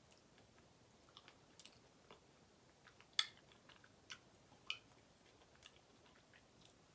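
Quiet chewing of cheesecake, with scattered soft mouth clicks, the sharpest about three seconds in.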